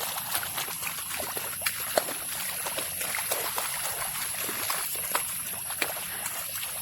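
Outdoor ambience by shallow water: irregular small splashes and trickling clicks over a steady high-pitched whine.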